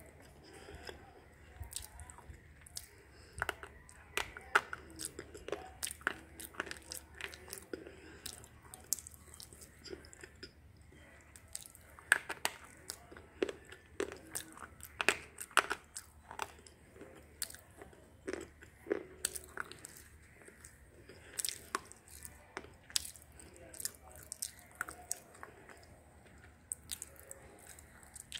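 Slate pencil sticks being bitten and chewed close to the mouth, making many irregular sharp crunches throughout.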